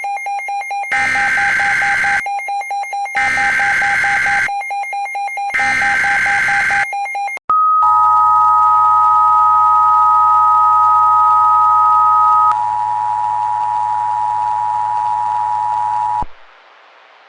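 Emergency Alert System tones. Three short bursts of buzzy digital SAME header data come over a steady tone. Then the EAS two-tone attention signal holds for about eight seconds, with a higher single tone over its first five seconds, and cuts off suddenly. The sequence opens a tornado warning alert.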